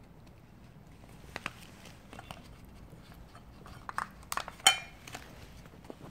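A cat eating wet cat food: scattered chewing and lip-smacking clicks, with a cluster of sharper clicks about four seconds in and one louder clack about three-quarters of the way through.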